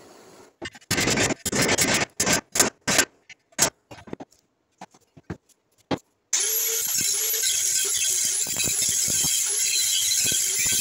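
Short crackling bursts of a stick-welding arc being struck again and again on a steel bar, then about six seconds in an angle grinder starts up and runs steadily, grinding the steel with a disc.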